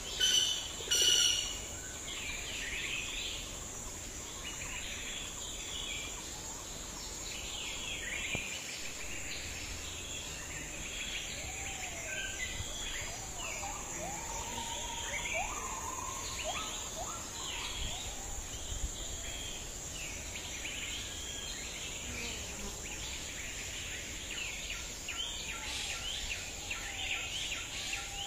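Outdoor ambience of insects buzzing steadily at a high pitch and many birds chirping throughout, with a few lower whistled bird calls near the middle. Two short, louder sounds come about a second in.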